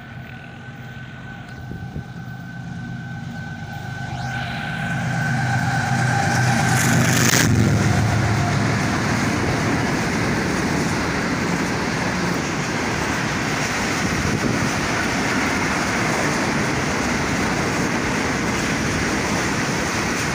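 Diesel-electric locomotive approaching and growing louder, with a steady high tone over its engine that stops as it passes about seven seconds in. The passenger coaches then roll past in a continuous, even rushing rumble.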